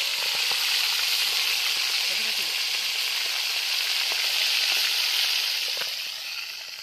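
Chicken liver and kidney sizzling in hot oil: a loud, steady frying hiss with small spatters, fading in the last second.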